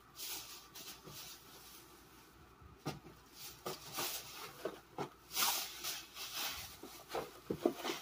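Grocery bags rustling and packaged food being handled and set down on a counter, in irregular bursts with a few light knocks.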